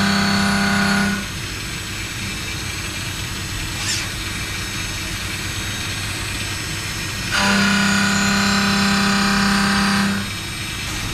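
WFL M60 mill-turn machine cutting a steel crankshaft. A steady humming tone with overtones sounds while the tool is in the cut. It drops away about a second in, leaving a duller machine noise, and comes back from about seven to ten seconds in.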